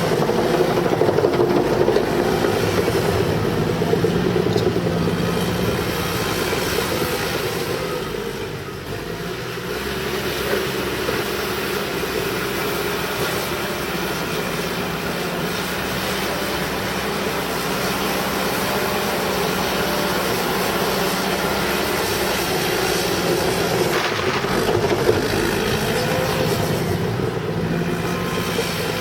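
Cat D5K crawler bulldozer's diesel engine working steadily under load while dozing in mud. It eases off briefly about eight seconds in, then comes back up.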